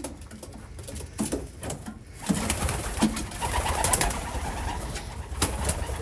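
Racing pigeons cooing in the loft, with short low coos and a louder stretch of rustling and clattering in the middle.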